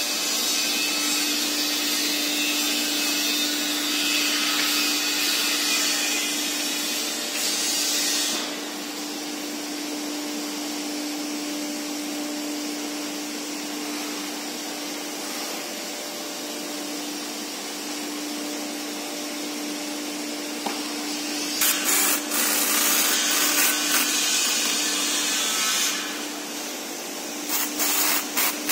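Steady hiss of compressed air for about the first eight seconds, then a quieter stretch with a steady workshop hum. Later a hose-fed pneumatic drill runs, first in one long burst of about four seconds, then in several short bursts near the end.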